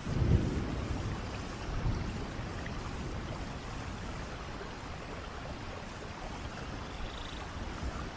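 Steady rushing of a flowing stream, with a few stronger low swells in the first two seconds.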